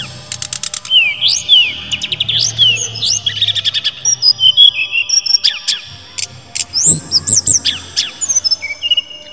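Brown-chested jungle flycatcher (sikatan rimba dada coklat) singing: a varied run of clear whistled notes and rising and falling slurs, broken by quick bursts of rapid ticking notes near the start and again about seven seconds in.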